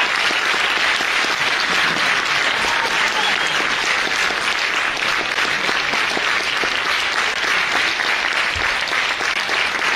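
Theatre audience applauding steadily, a dense patter of many hands clapping at once.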